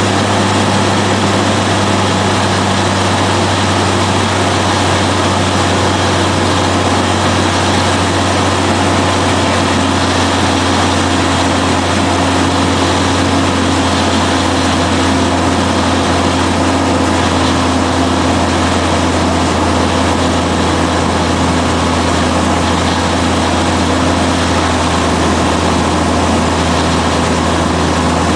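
Cessna 182RG's six-cylinder piston engine and propeller running steadily in flight, a constant loud drone. A higher tone in it rises slightly about ten seconds in.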